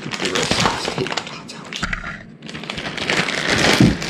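Plastic bag of frozen tater tots crinkling and rustling as it is handled and folded shut, with a short lull about two seconds in and the loudest crinkling near the end.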